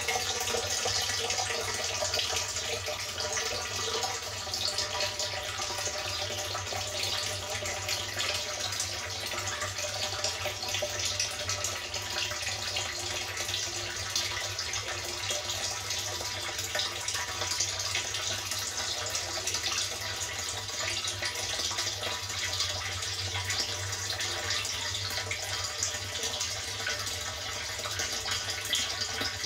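A thin stream of water pouring from an inlet pipe into a partly filled water tank, splashing steadily into the water's surface, with a faint low hum underneath.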